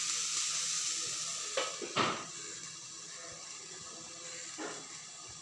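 Vegetables sizzling in butter in a pan, with a sharp knock on the pan about two seconds in; the sizzle then grows fainter.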